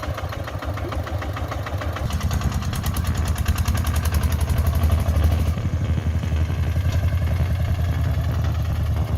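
A mid-sized engine running steadily, with a rapid even firing rhythm that grows a little louder about two seconds in.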